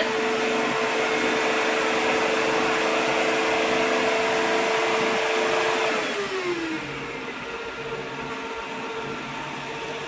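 ILIFE W90 cordless wet-dry vacuum running its self-cleaning cycle on the base: the brush roller spins fast while suction pulls the rinse water from the roller into the dirty-water tank, giving a steady motor whine. About six seconds in the whine falls in pitch and the sound settles to a quieter steady run.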